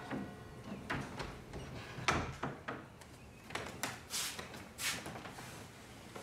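Soft footsteps and small knocks and clicks of a person moving about a quiet room, about one a second, with a rustle of fabric as a garment is handled around four to five seconds in.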